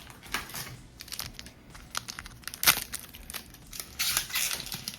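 Foil trading-card booster pack crinkling and tearing as it is handled and opened: an irregular run of sharp crackles, the loudest a little before the middle.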